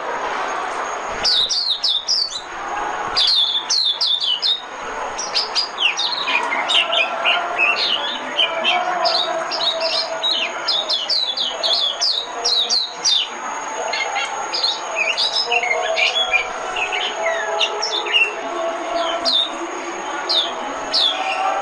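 White-eye (vành khuyên) singing a fast, twittering song of quick high notes sweeping downward, with a lower running warble underneath.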